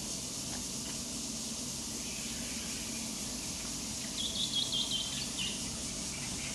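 Outdoor ambience: a steady high insect hiss and a low hum, with a short run of high chirps about four seconds in.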